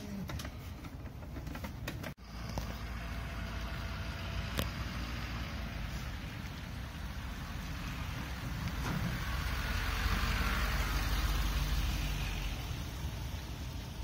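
Pickup truck towing a large enclosed horse trailer drives past, its engine running with tyre noise. The sound swells as the rig passes about ten seconds in, then eases off.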